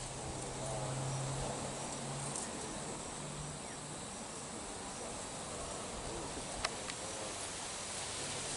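Insects chirping and buzzing in creekside grass: a steady hiss with faint, evenly repeated high chirps. A low steady hum stops about two seconds in, and there is a single sharp click about two-thirds of the way through.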